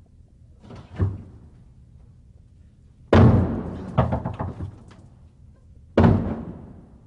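A few heavy booming hits, each ringing out as it dies away: one about a second in after a brief swell, a loud one about three seconds in followed by a quick cluster of further hits, and a last one about six seconds in.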